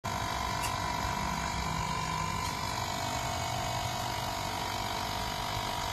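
Portable USB-rechargeable mini air compressor (digital tyre inflator) running steadily, a constant motor whine with one held tone.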